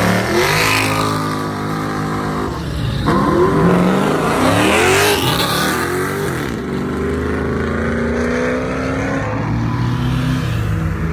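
Car engines revving hard as cars pull away and drive past, the engine pitch climbing and dropping several times around the middle, then settling into a steadier engine note.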